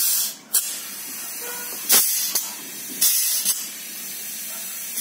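Compressed air hissing through a hose and spark-plug-hole adapter into cylinder 4 of a Chevrolet Opala four-cylinder engine during a head-gasket leak test. A steady hiss runs under several short, louder blasts of air.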